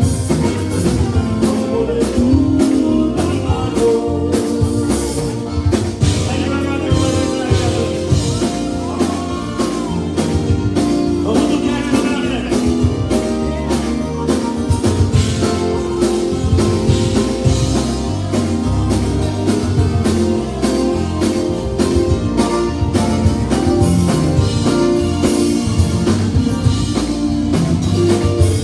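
Live Tejano conjunto band playing a song: button accordion, electric guitars, bass and drum kit with a steady beat, and sung vocals over the top.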